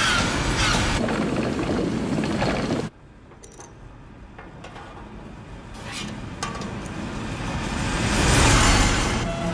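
Film sound effects of clanking, grinding machinery. A loud stretch of mechanical noise cuts off suddenly about three seconds in. After that come a few scattered clicks and a noise that slowly swells up near the end.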